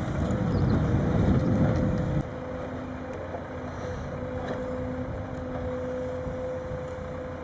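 Heavy vehicle engine running with wind noise on the microphone. About two seconds in, the sound cuts abruptly to a quieter, steady engine hum.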